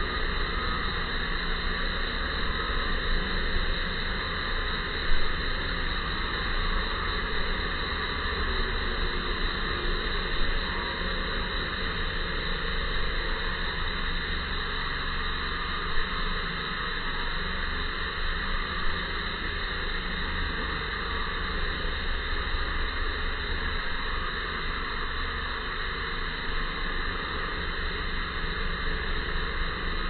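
Steady background hiss with a low rumble underneath and a few small knocks.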